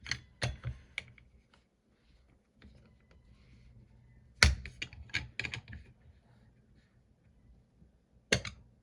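Scattered sharp clicks and knocks from a phone screen-separator machine being worked, with a loud snap about four and a half seconds in and another near the end. This is a failed attempt to pull a cracked iPhone screen free.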